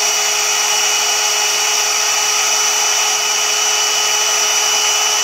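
Blo Brush hot-air brush dryer running on its cool setting: a loud, steady rush of air with a constant motor whine.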